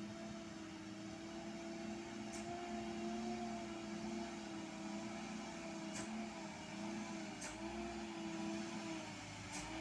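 Dump truck engine running steadily, a low hum whose pitch wavers slightly, with a few faint clicks.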